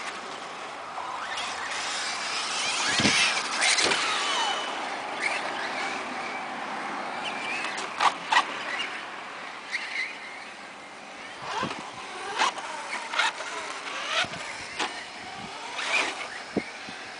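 Radio-controlled truck running around a track, its motor whine rising and falling in pitch, with several sharp clacks along the way.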